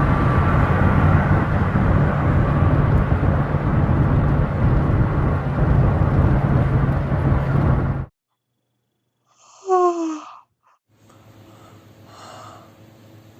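Loud, steady rumbling noise that cuts off suddenly about eight seconds in. After a moment of silence, a person gives one short yawn with a downward-gliding voice.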